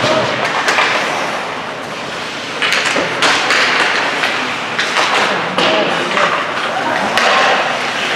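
Ice hockey play: skate blades scraping the ice, with repeated sharp knocks of sticks and puck and thuds against the boards.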